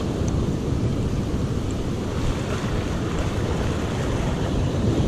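Ocean surf breaking and washing up a sandy beach in a steady low rush, with wind buffeting the microphone.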